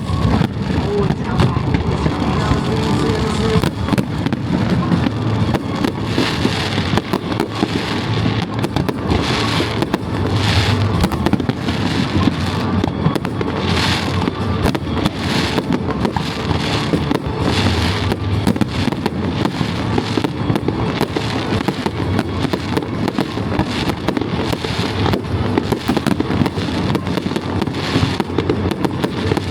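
Fireworks going off in a dense, continuous barrage of bangs and crackles, with louder bursts every few seconds.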